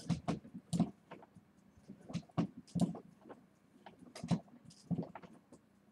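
Irregular light clicks and knocks, about two or three a second and uneven in strength.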